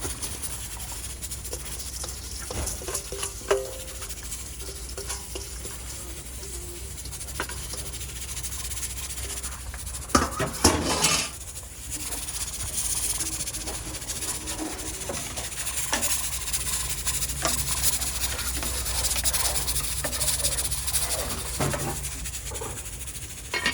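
Stew beef sizzling in a pot, a steady hiss, with a spoon stirring and scraping and small knocks against the pot; a louder clatter of utensil on pot comes about ten seconds in.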